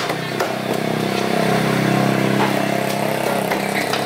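A small engine running steadily, likely a passing or idling motorbike, loudest in the middle. A few light knocks of a knife blade on a wooden chopping block sound under it.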